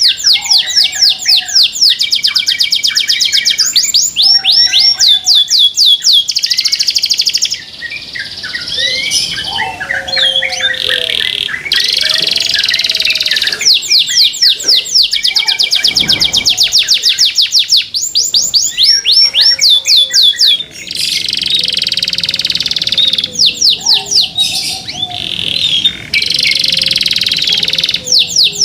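Canary singing: long, loud trills of rapidly repeated sweeping notes, broken every few seconds by short pauses, with softer, lower whistled notes in between.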